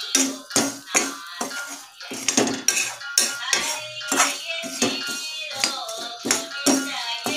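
A steel spatula scraping and clinking against a kadai as peanuts, dal and coconut slices are stirred, about two strokes a second, with music playing behind.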